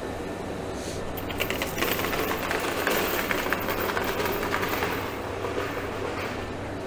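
Steel chain being pulled out of a plastic bucket and dragged across a concrete floor: a fast rattle of clinking links that starts about a second in and tails off near the end.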